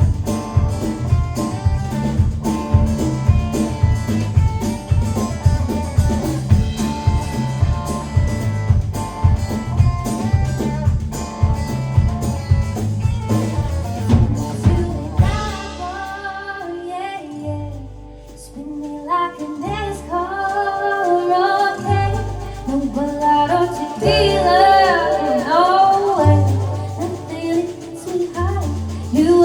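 Live country band with guitar and drum kit playing a song. About halfway the drums drop out for a quieter breakdown of long held bass notes under a woman singing.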